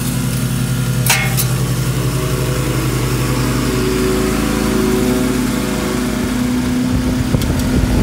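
Air conditioner condenser unit humming steadily with its compressor running, while the condenser fan motor, given a spin by hand, starts turning, with a sharp clack about a second in and a growing rush of air near the end. A fan that starts only after a push points to a bad fan capacitor rather than a bad motor, as the speaker judges probable.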